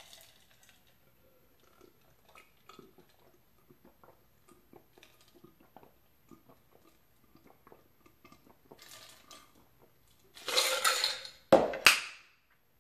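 A glass of ice water being drunk, with faint gulping and small clicks of swallowing. Near the end come a louder rush of breath-like noise and two sharp knocks as the glass is put down on the table.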